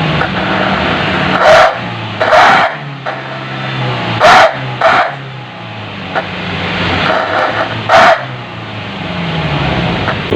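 Daihatsu Gran Max engine running through a Swoosh 'ngorok' (growl-tone) stainless aftermarket exhaust, its low note rising and falling with the throttle. About five short, loud bursts cut through it, at about one and a half, two and a half, four, five and eight seconds in.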